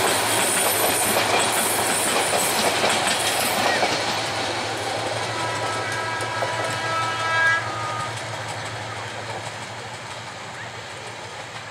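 Passenger train coaches running over the rails as the train passes and moves away, the rolling wheel noise fading steadily. Thin, high, steady squealing tones ride over it until about two-thirds of the way through, then stop.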